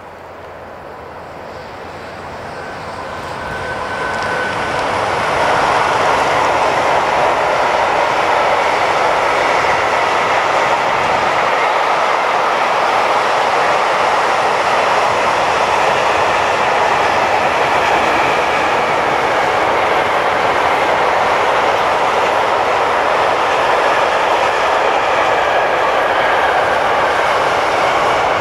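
Electric-hauled freight train passing. Its noise grows over the first five seconds as it approaches, then the long string of open freight wagons rolls by with a loud, steady rumble of wheels on rails.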